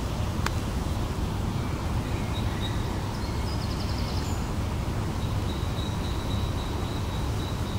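Steady low outdoor rumble with faint high chirps, a short fast trill about three and a half seconds in, and a single sharp click about half a second in.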